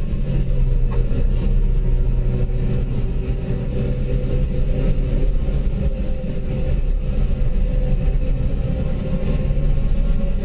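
Citroën DS3 being driven at speed, its engine running under load with steady road and tyre noise, heard from inside the cabin. The engine's steady note changes about three seconds in.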